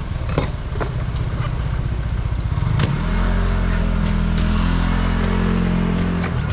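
A motor vehicle's engine running close by, with a low rumble and a few clicks at first. The engine note grows louder and steadier about three seconds in, then eases off near the end.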